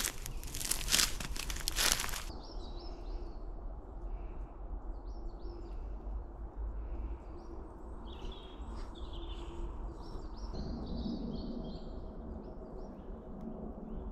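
Footsteps crunching through dry bracken and grass for about two seconds. Then woodland birds chirping and calling over a low steady rumble.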